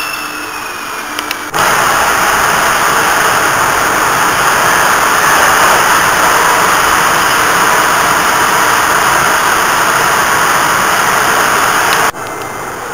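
Ride noise inside a Prague metro M1 car running through the tunnel: a loud, steady rushing rumble of wheels and motors that cuts in suddenly about a second and a half in and cuts off suddenly near the end. Before it, a train at the platform runs with a thin motor whine.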